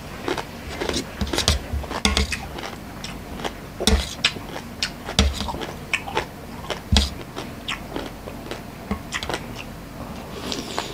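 Close-up eating sounds: a metal spoon clinking and scraping in a stainless steel bowl, with irregular sharp clicks and a few louder knocks, amid mouth sounds of biting and chewing raw shrimp and lotus-stem salad.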